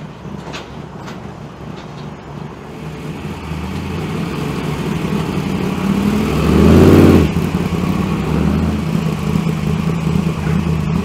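Jimco trophy truck's race engine rumbling at low speed as the truck rolls up, growing louder as it nears, with one short rev about two-thirds of the way through.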